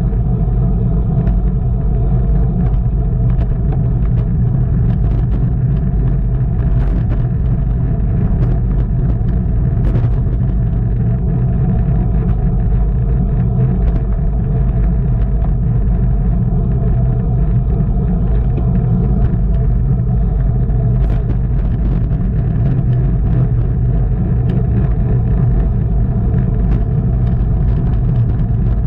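Steady, loud wind rumble on the microphone of a camera riding along with a bicycle at race speed, with faint scattered ticks.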